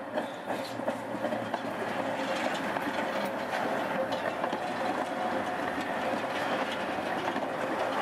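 Tatra T4D tram rolling past close by, its wheels clicking over the rail joints and points. It grows louder over the first second or two as it nears, with a faint steady whine under the rolling noise.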